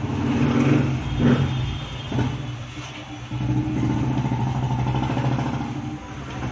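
A motor running with a low, steady hum that swells and eases, with two brief knocks about one and two seconds in.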